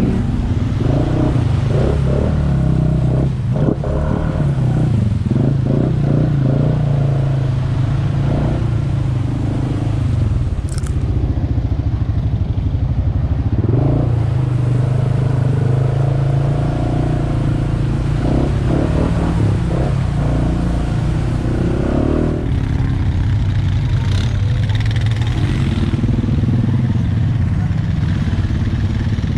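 Honda Foreman ATV engine running steadily at trail speed, its note rising and falling a little with the throttle, with some clatter from the machine.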